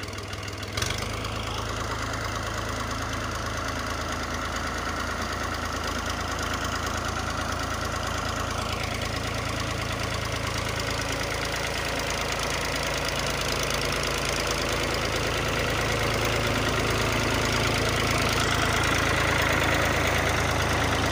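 New Holland farm tractor's diesel engine running steadily at low speed while pulling a trailer loaded with green fodder, growing gradually louder over the last several seconds as it draws close.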